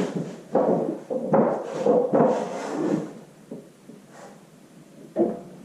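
Clunks, knocks and scraping of heavy metal parts being shifted, loudest and busiest in the first three seconds, with a single sharp knock near the end.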